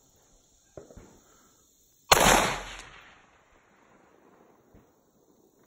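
A single rifle shot about two seconds in, its report rolling away in a long echo over about a second.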